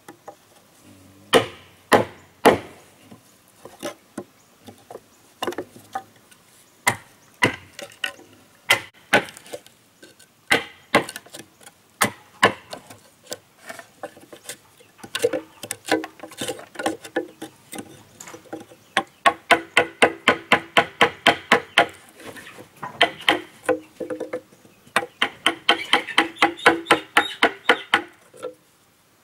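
Blows of a hand tool on wood. The blows are sharp and irregularly spaced at first. From about halfway through they come in quick, even runs of about four to five strikes a second, with a ringing tone.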